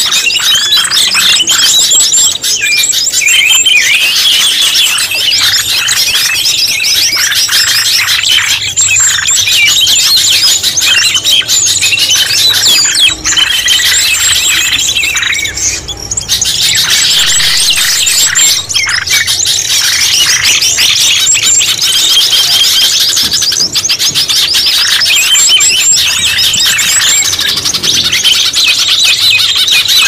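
Bird-lure recording for forest birds: a dense chorus of many small birds chirping and trilling rapidly and without pause, with a steady high tone beneath for about the first half.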